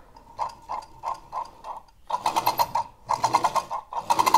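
The mechanical chuffing device in a 1977 Hornby R150 B12 tender: a tab on a plastic tender wheel plucks a small plastic piece as the wheel turns, giving a half-realistic chuffing as the tender is rolled by hand. The clicks come about three a second at first; from about two seconds in they come in faster bursts of rapid clicking.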